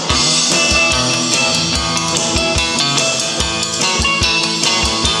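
Live band playing an instrumental passage of a soul cover: guitars, mandolin and a three-string cigar box guitar over a drum kit keeping a steady beat, with no singing.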